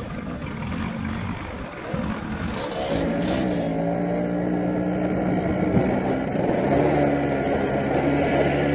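Motor scooter engines running on a steep hill climb. A rushing noise fills the first few seconds, and from about four seconds in steady, slightly wavering engine notes take over.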